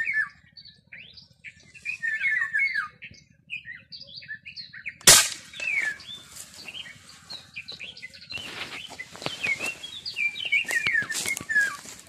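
Small birds chirping and twittering in quick repeated calls, with one sharp gunshot crack about five seconds in. From about eight seconds on there is rustling and knocking as dry grass is pushed through, while the chirping goes on.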